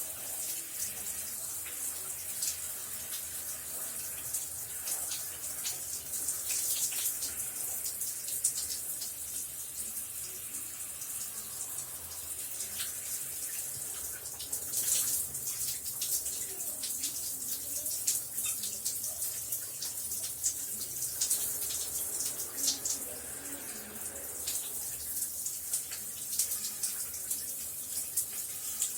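Running shower: a steady spray of water hissing down, with a dense patter of small droplet splashes.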